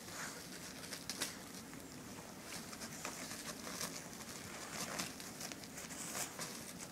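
A litter of young puppies nursing and squirming on paper-covered bedding: soft rustling and crinkling with scattered small clicks.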